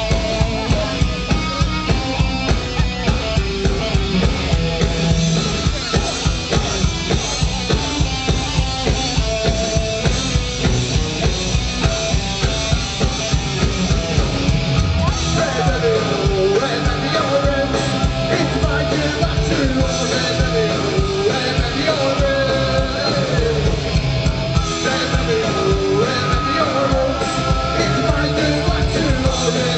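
A punk rock band plays live through a festival PA, heard from within the crowd: a fast, steady drum beat under distorted guitars. A male voice sings over it, mostly from about halfway through.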